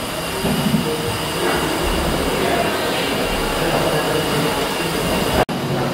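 Steam-driven Victorian compound beam engine running at a steady pace, giving a continuous mechanical rumble and clatter from its motion and flywheel.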